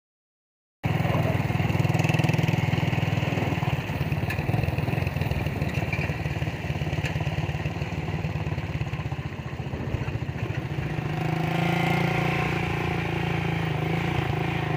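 Motorcycle engine running steadily under way, cutting in abruptly about a second in. Near the end its note gets a little louder and higher.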